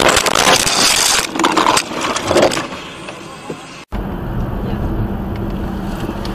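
Noisy clatter and scraping as a car crashes, picked up by a dashcam that has been knocked loose, dying down over about three seconds. After a cut, the steady low rumble of a car driving, heard from inside the car.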